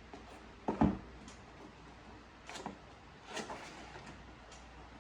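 A few hard knocks and clicks of things being handled and set down: one loud knock just under a second in, then smaller ones around the middle and one near the end.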